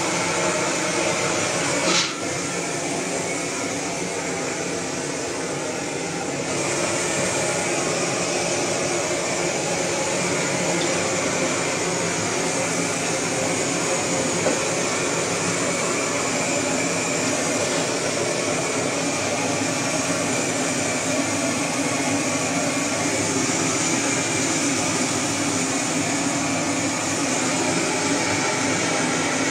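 Handheld gas blowtorch burning with a steady rushing hiss as it singes a carcass. A sharp click comes about two seconds in, and the torch noise is a little lower for a few seconds before it comes back up.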